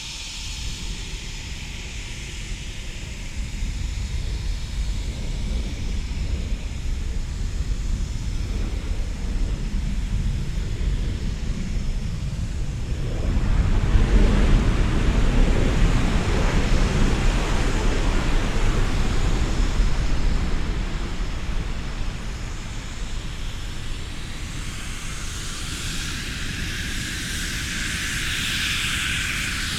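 Eurofighter Typhoon's twin jet engines during a flying display. The rumble grows to a loud pass about halfway through and fades, then a high-pitched hiss builds as the jet approaches again near the end.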